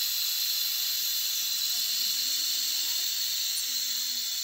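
Dental unit water line being flushed through the open handpiece tubing into a stainless steel sink: a steady hiss of spray from the line.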